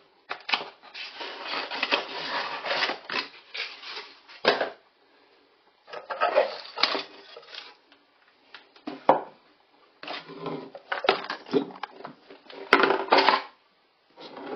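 Cardboard box rustling and a small electric fan motor being lifted out and handled, its metal frame clicking and knocking, in irregular bursts with short pauses between them and a sharp knock near the end.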